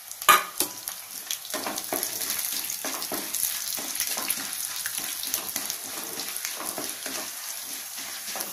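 Chana dal and urad dal frying in a hot-oil tempering of mustard seeds, cumin and crushed garlic in a kadai: a steady sizzle with many small crackles, after one sharp knock about a quarter second in.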